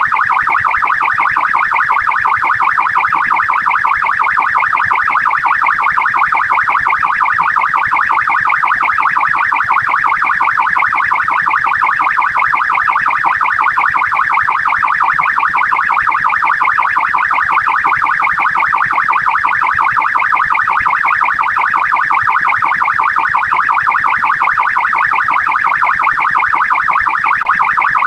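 Australian police car siren sounding without pause, its pitch sweeping rapidly up and down several times a second.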